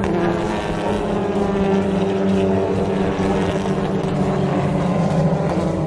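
A pack of TCR touring cars racing past, their turbocharged four-cylinder engines at high revs blending into one steady droning note, with slight shifts in pitch as the cars pass.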